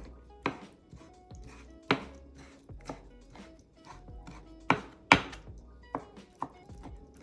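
Knife chopping on a cutting board in separate, irregular strokes. The two loudest come close together about five seconds in.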